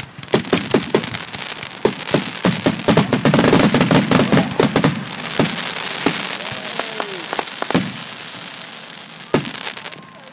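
Aerial fireworks bursting: a rapid run of bangs and crackling, densest a few seconds in, then a fading hiss with two louder single bangs near the end.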